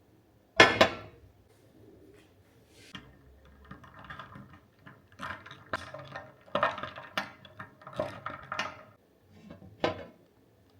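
Household objects being handled: a sharp knock about half a second in, then a run of clinks and clatter over several seconds, and one more knock near the end.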